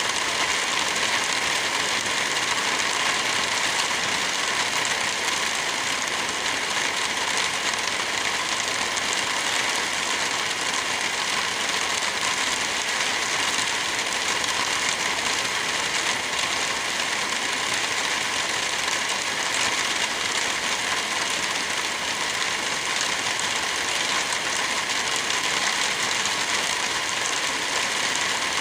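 Wind blowing through forest trees with light rain falling: a steady, even hiss with no gusts or breaks.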